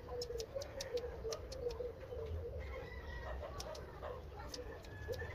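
Scissors snipping a dog's fur in short, sharp, irregular snips, with birds clucking and calling in the background.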